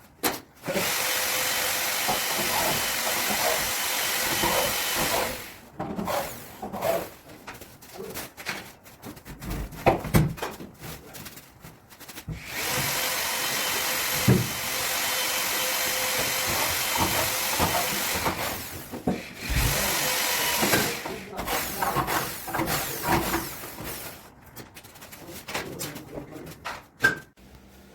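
Handheld electric power tool working wood, running steadily in runs of several seconds with a constant motor tone. Between the runs come irregular knocks and handling noises.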